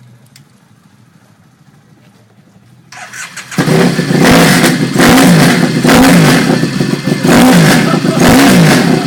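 Triumph motorcycle engine starting about three seconds in, then revved hard over and over, its pitch rising and falling about once a second, very loud.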